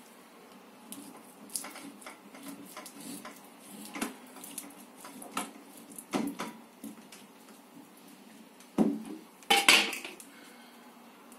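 Steel uncapping knife slicing wax cappings off a honeycomb frame, with scattered light scrapes and taps of the blade. A louder metal clatter comes near the end.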